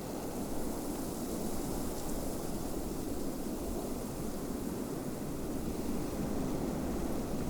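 Steady snowstorm wind: an even, low rushing noise with a fainter hiss above it, with no gusts or separate sounds standing out.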